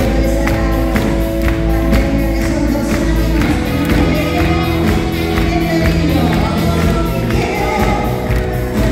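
Woman singing a Spanish-language pop song live, backed by a full band with drums keeping a steady beat.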